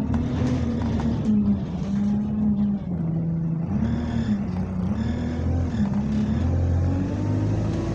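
Bus diesel engine and drivetrain heard from inside the saloon while under way, a moaning engine note that dips about three seconds in, then rises and falls twice, with a faint high whine over it in the middle. The uploader puts the sound down to a burst turbo.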